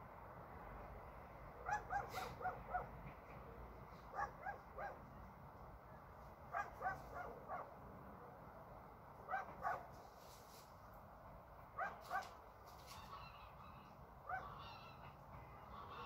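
Distant animal calls: short pitched calls in groups of two to five, repeating every two to three seconds and thinning out toward the end, over a faint steady low background.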